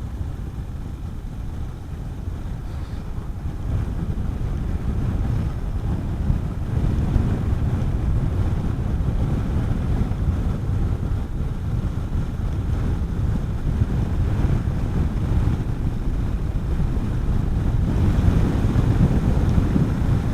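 Wind rushing over the microphone of a Honda CB400SS motorcycle on the move, with its single-cylinder engine running underneath. The wind noise grows louder about four seconds in and again near the end.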